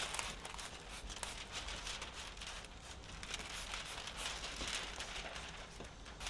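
Thin plastic window-tint film crinkling and crackling as its clear release liner is peeled off and the film is handled.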